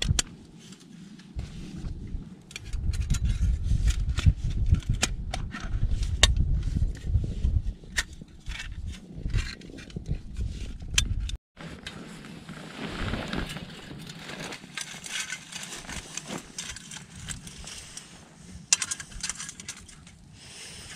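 Thin perforated metal camping-stove parts clicking and scraping as they are handled and fitted together, over a low rumble. About halfway through the sound changes to a steady hiss with a few light metal clicks as the stove windscreen is set down.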